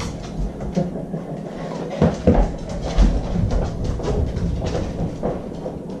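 Dogs' paws and claws clicking and knocking on the floor as they move about, with a few heavier thumps about two to three seconds in.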